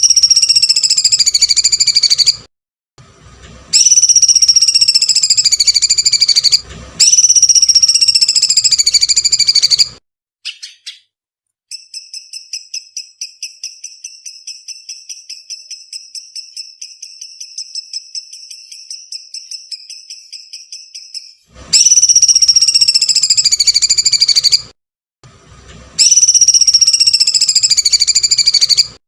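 Bird-tutor (masteran) recording: loud, shrill screeching calls, each lasting two to three seconds and rising then falling in pitch. Three come in the first ten seconds and two near the end. Between them is a quieter, rapid, even trill of about eight pulses a second.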